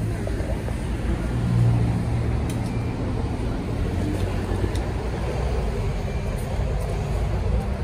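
Steady low rumble inside the cabin of a BYD Alexander Dennis Enviro200EV battery-electric bus on the move, swelling briefly a couple of seconds in.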